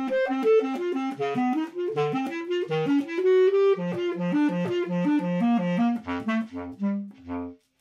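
Solo basset horn playing a quick run of notes that leaps back and forth between its low and middle register, reaching its lowest notes near the end.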